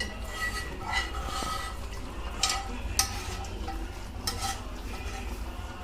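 A metal spoon stirring in a cooking pan, knocking against it about five times with short ringing clinks.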